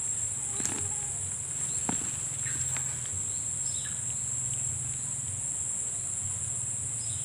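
Steady high-pitched insect chorus drones throughout, over a low steady hum, with a few faint clicks in the first few seconds.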